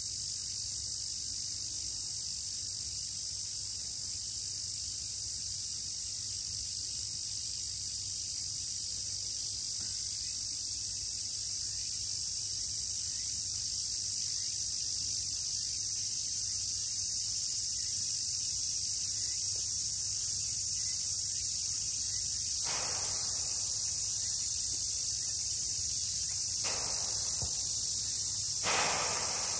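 Steady, high-pitched drone of an insect chorus, unbroken throughout, with a few brief soft noises in the last several seconds.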